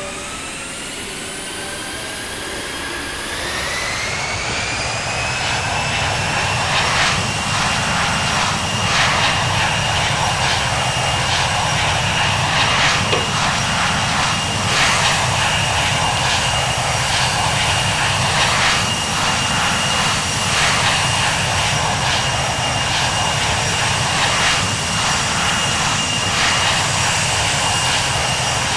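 Airplane engine running: a high whine climbs in pitch over the first few seconds, then holds steady over a constant rushing noise, with a regular pulsing about every two seconds.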